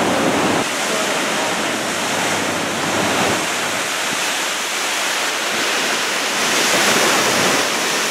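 Big typhoon-swell waves breaking, a steady rush of white water that grows a little louder about six and a half seconds in.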